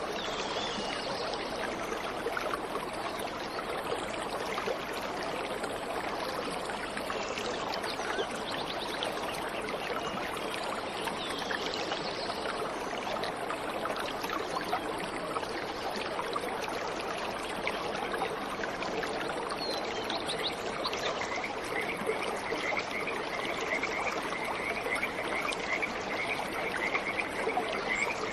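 Waterfall water rushing steadily, with scattered bird chirps over it; about two-thirds of the way through, a high, rapid, steady trill joins in.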